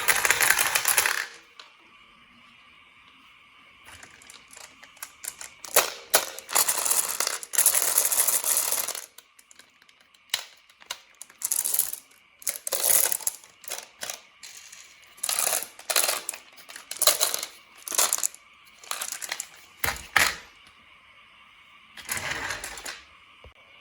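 Marbles clattering down a HABA marble run: rapid clicks and short rolling rattles as they hit and run along the track, coming in uneven bursts with brief quiet gaps between.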